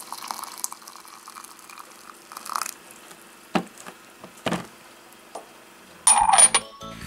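Quiet kitchen handling sounds: a few light knocks of utensils or pans over a faint steady hum, then a louder brief clatter about six seconds in.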